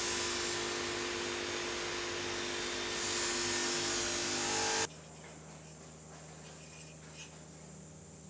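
A steady small-motor whine over a hiss, with plastic film crinkling under the hands. About five seconds in, the sound cuts off abruptly to a quieter low hum with a few faint ticks.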